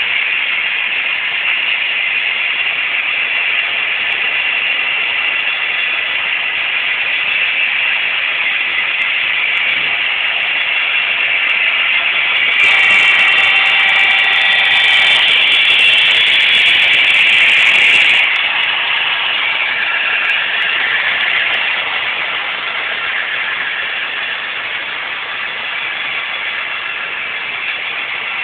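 Model trains running on a layout: a steady whirring of small locomotive motors and wheels on track, growing louder with a whine for about five seconds in the middle as a locomotive runs close by.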